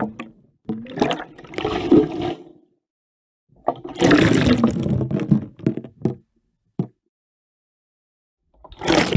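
Strong water sloshing and splashing, heard from an interior perspective, in surges separated by silence. One surge comes about a second in, a longer one at about four seconds, and another near the end. A single short knock falls between the last two surges.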